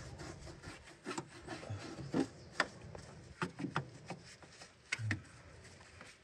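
A thick paintbrush scrubbing and dabbing primer onto the metal of a car's wheel well, in irregular rubbing strokes with a few sharper knocks.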